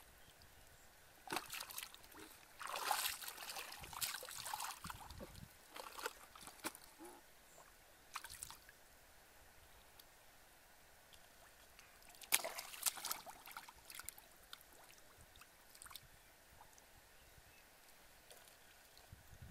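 Hands splashing and sloshing in shallow muddy water while grabbing for fish, in irregular bursts: a busy spell near the start, a few smaller splashes after, and another burst about twelve seconds in.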